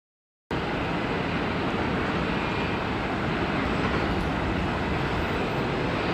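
Steady jet noise of an Airbus A380 on final approach and touchdown. It cuts in abruptly about half a second in.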